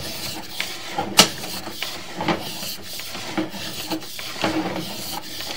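Sewer inspection camera's push rod being hauled back through the pipe: rubbing and scraping with irregular clicks and knocks.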